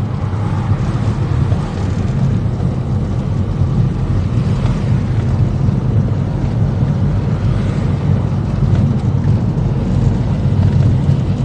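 Steady low rumble of car tyres and road noise on rough, milled-off asphalt, heard from inside the moving car; the scraped road surface is what makes the noise.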